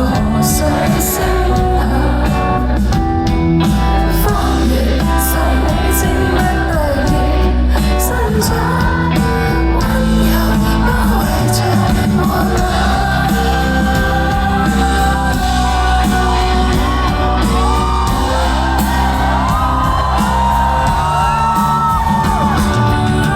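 A live band playing a pop song with a singer's vocal, heard through a concert-hall recording.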